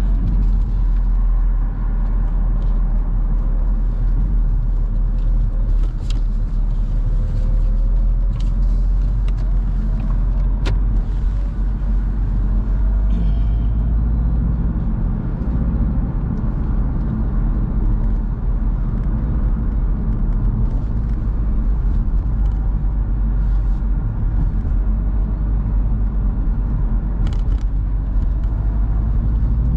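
A car on the move: steady low rumble of engine and road noise, with the engine note rising slightly now and then and a few sharp ticks.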